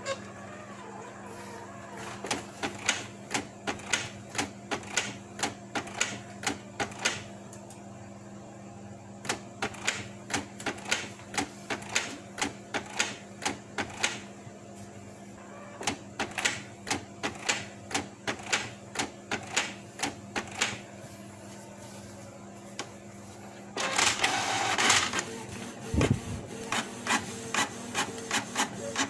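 Canon PIXMA iP2870S inkjet printer running a test print, its mechanism clicking in runs of about two clicks a second over a steady hum. Near the end comes a louder burst of mechanical noise as the printed page is fed out. The paper now feeds through normally, the jam having been cleared by removing a piece of orange peel from the feed.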